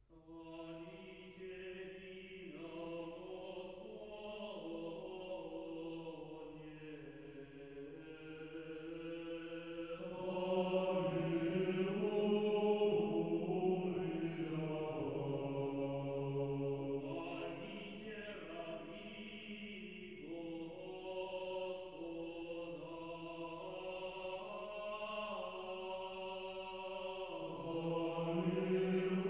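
Choral chant: several voices singing slow, held notes that move in steps. It starts suddenly and swells louder about ten seconds in.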